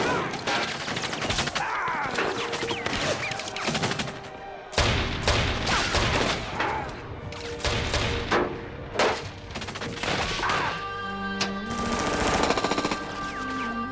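Film soundtrack of a firefight: rifle fire in rapid, overlapping shots throughout. Music comes in under the shooting near the end, holding steady tones.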